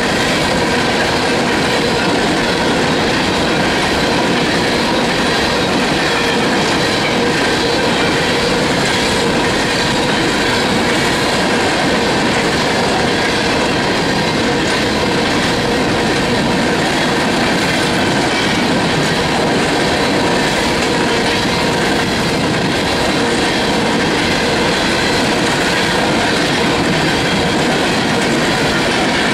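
Loaded covered hopper cars of a freight train rolling steadily past, wheels clacking over the rail joints, with steady high tones running through the rumble.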